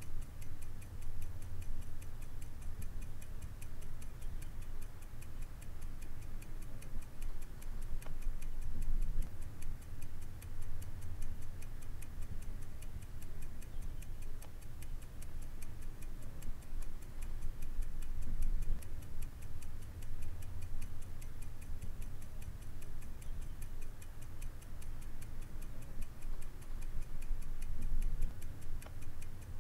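A clock ticking steadily, with even, regular ticks over a low rumble.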